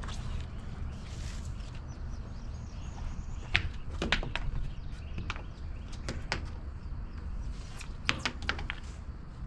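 Footsteps and scattered sharp knocks on a wooden pier deck as a crab net line is handled, over a steady low rumble.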